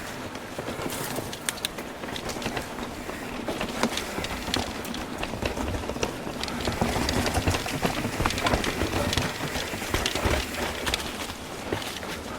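Mountain bike rolling down a rocky trail: a steady clatter of small knocks and rattles from the bike and tyres on rock over a low rumble.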